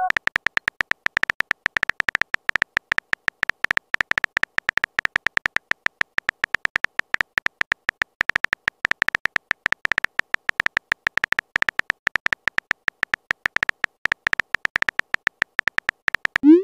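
Simulated phone-keyboard typing sound effect from a texting-story app: a rapid, even stream of short clicks, one per typed character, running without a break.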